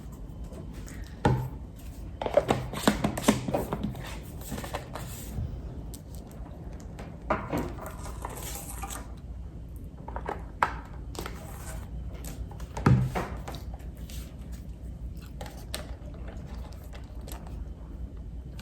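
Scattered knocks, clicks and clatters of a small portable electric kettle being handled, with a cluster of quick taps in the first few seconds and a few single knocks later.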